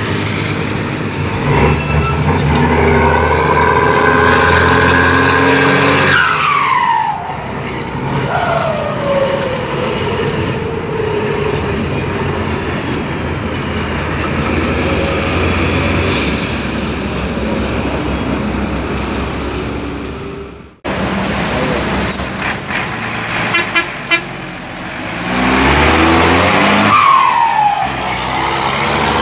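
Mercedes-Benz 1721 bus's turbodiesel engine pulling under load, its modified turbo giving a whistling howl that rises as the engine revs and falls away in long glides when the driver lets off, several times over. Heard from inside the bus's cab.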